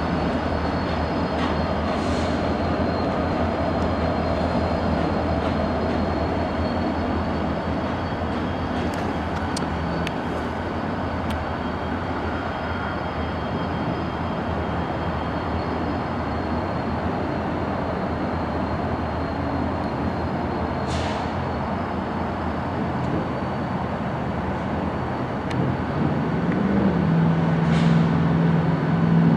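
Diesel-electric road-switcher locomotive, Union Pacific 1997, running as it rolls slowly through the yard, a steady engine drone with a few light clicks. About 26 seconds in it grows louder and a lower engine tone comes in as the locomotive draws closer.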